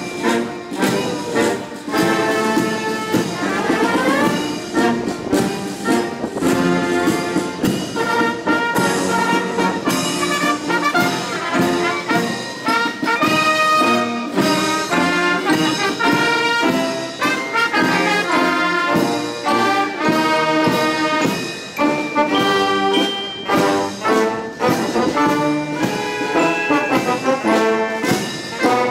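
Military brass band of trumpets, trombones, saxophones and sousaphones playing a tune together.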